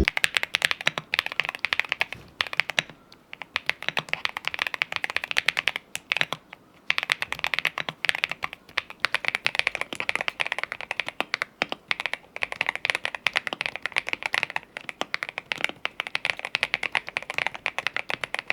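Mechanical keyboard with MonsGeek Green Fog tactile switches being typed on quickly and continuously, dense clacking keystrokes with short pauses about three seconds in and around six to seven seconds.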